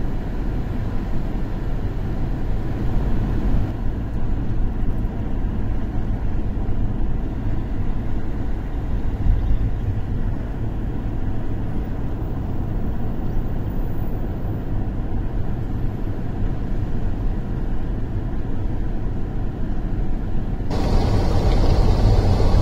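Steady low rumble of a car driving on a wet road, heard from inside the cabin. Near the end a louder hiss comes in suddenly.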